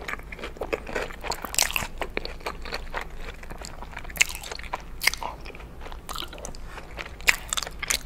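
Chewing a grilled cheese sandwich: irregular crunching and mouth clicks, with two sharper, louder clicks, one about four seconds in and one near the end.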